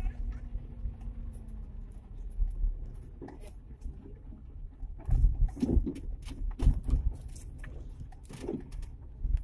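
Suzuki Carry pickup jolting down a rough dirt track, heard from inside the cab: a low rumble with irregular knocks and rattles of the body and suspension over the bumps, several of them loud. A faint steady engine hum fades out about a second and a half in.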